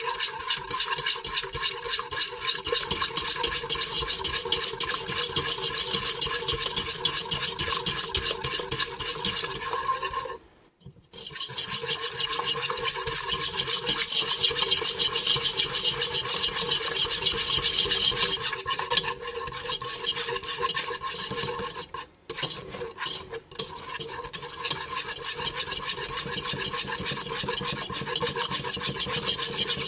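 Wire whisk beating hot sugar syrup in a pot, a fast steady scratchy rasp of the wires against the pot, stopping briefly twice, about ten and about twenty-two seconds in. The syrup is being whipped until it turns white and foamy to set as fondant.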